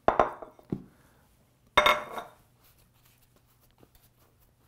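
Kitchenware knocking on a wooden worktable while pizza dough is floured and handled. There are two soft knocks in the first second, then a sharp knock with a brief ring about two seconds in, followed by faint light taps.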